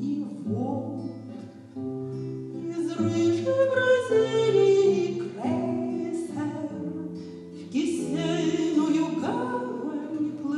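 A woman singing a song while accompanying herself on a classical acoustic guitar: long held sung notes over plucked chords.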